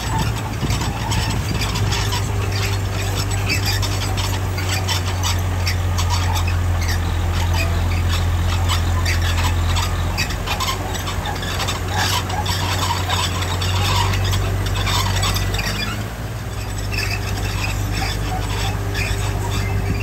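D60 crawler bulldozer's diesel engine running under load with a steady low drone, with a rapid clatter of short metallic clicks and squeaks from its tracks as it pushes dirt and stone. The engine note dips briefly about sixteen seconds in.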